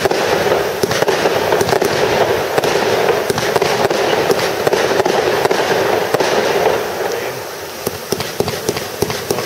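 Fireworks display: aerial shells going off in a dense, rapid string of pops and bangs, thinning out about seven seconds in.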